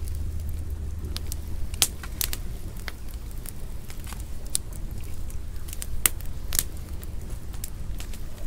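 Wood fire crackling, with irregular sharp pops over a low steady rumble.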